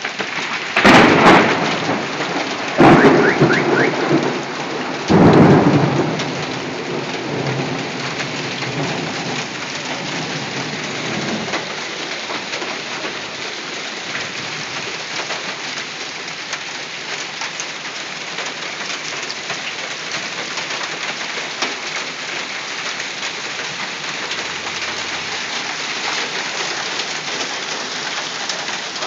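Hail and rain falling hard and steadily on the ground and nearby surfaces, a dense hiss with fine pattering. In the first six seconds three loud crashes come about two seconds apart.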